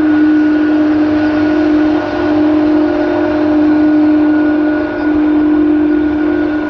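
Airbus A300-600ST Beluga's General Electric CF6-80C2 turbofan engines running at taxi power: a steady, loud whine of several held tones over a rushing noise.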